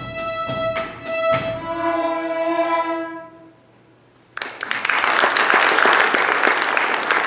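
String orchestra of violins and cellos playing a few short, accented closing chords and then a final held chord that fades away. After a brief hush, audience applause breaks out about four and a half seconds in.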